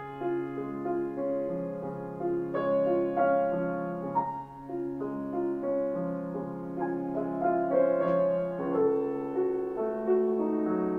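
Steinway Model B grand piano with a Spirio|r player system reproducing a recorded performance by itself, the keys moving with no one at the keyboard. A melody rings over a softer left-hand accompaniment.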